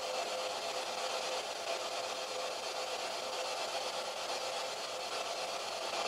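Steady, even hiss with a faint constant hum: the background noise of the recording, with no distinct event.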